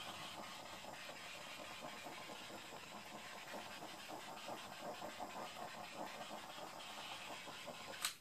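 Handheld gas torch flame hissing steadily over wet acrylic paint to pop air bubbles, then shut off with a sharp click near the end.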